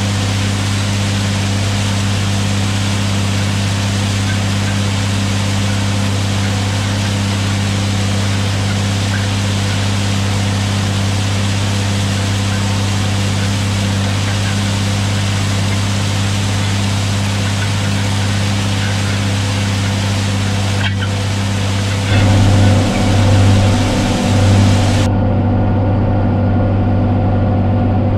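John Deere 4555 tractor's six-cylinder diesel running steadily under load while it pulls a 635 disk through corn stalks: a deep engine drone under a rushing hiss from the disk cutting through stalks and soil. A few heavy bumps come near the end, and then the sound turns muffled, as heard inside the tractor cab.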